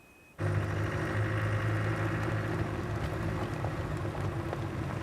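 An engine running steadily at an even pitch, cutting in abruptly about half a second in.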